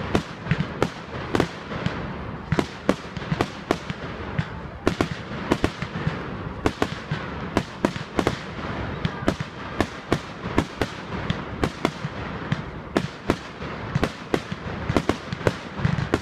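Fireworks display going off: a rapid, irregular run of sharp bangs and crackling reports, several a second, without a pause.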